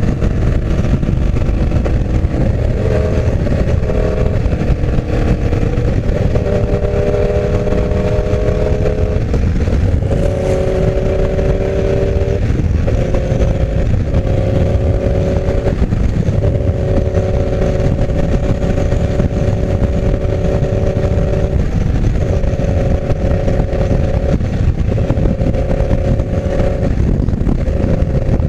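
Yamaha R1's inline-four engine, on a full exhaust with no catalytic converter, running at steady cruising revs under a rush of wind. The engine note holds for a few seconds at a time, broken by brief dips as the throttle eases and returns, and falls a little in pitch at the start.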